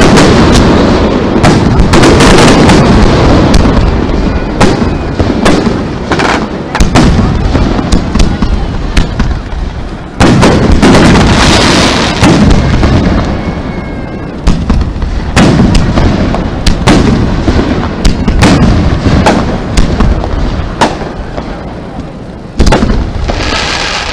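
Aerial fireworks shells bursting overhead in rapid succession: a string of sharp bangs, each trailing off in a rolling rumble. The heaviest blasts come at the start, about ten seconds in, and near the end.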